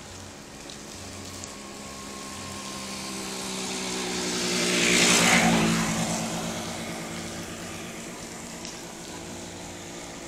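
A road vehicle passing close by on the wet road, its engine and tyre hiss swelling to a peak about five seconds in and then fading away.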